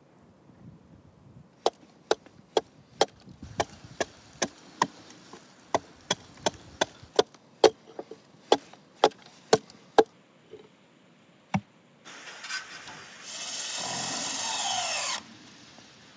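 A hatchet chopping into an old weathered wooden beam, splintering the dry wood, with sharp strikes about two a second. Near the end comes a louder noise of about two seconds that starts and stops abruptly.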